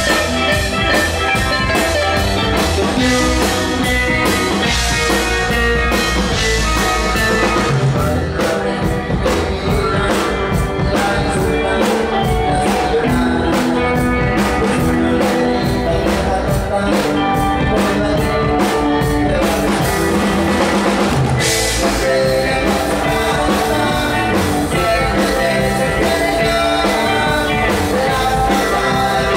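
Live rock band playing: a drum kit keeping a steady beat under electric guitars, with a cymbal swell about twenty seconds in.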